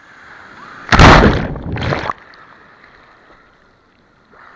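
Ocean wave breaking over a camera held at water level: a rushing build, then a loud crash of whitewater for about a second that cuts off suddenly.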